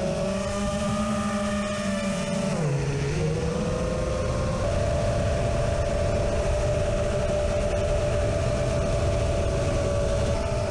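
A 5-inch FPV quadcopter's brushless motors (DYS Samguk 2207 2600KV) and three-blade props whine steadily at one pitch. The whine drops in pitch about two and a half seconds in as the throttle eases, then climbs back and holds, over a steady low rumble.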